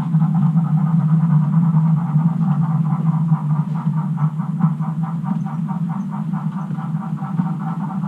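OO gauge model train running on the layout: a steady low hum with a rhythmic beat of about five a second that fades out near the end.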